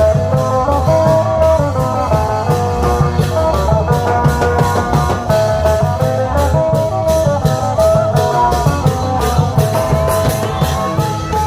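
Isan klong yao long-drum band playing a lively parade tune: drums and cymbals keep a fast, even beat under a plucked-string melody that steps up and down.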